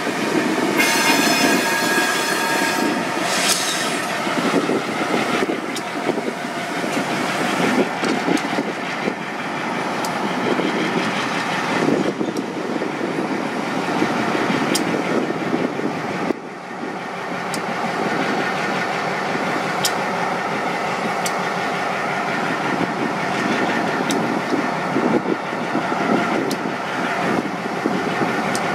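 Covered hopper cars rolling past, shoved by an EMD SW1500 diesel switcher: a steady rail rumble with repeated sharp clicks of the wheels. A high metallic squeal from the wheels starts about a second in and lasts a couple of seconds.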